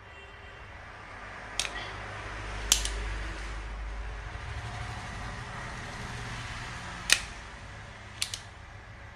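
Spring-loaded desoldering pump clicking while solder is being removed from a pin on a circuit board: about four sharp clicks in two pairs, each pair about a second apart, over a steady low hum.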